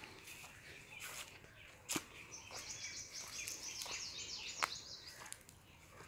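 A small songbird singing a rapid, high twittering warble for about three seconds, starting a little past two seconds in. A few sharp clicks cut through, the loudest just before the song starts and another near its end.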